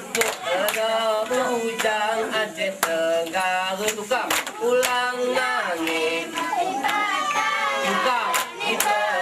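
A group of girls singing a mesekat chant together, the song of the seated dance of the Alas people, with sharp hand claps breaking in every second or so.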